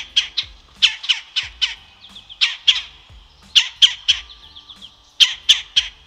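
Red-bellied woodpecker calling: short, loud notes given in quick runs of two to four, about a quarter-second apart, with a faint rapid chatter between some runs.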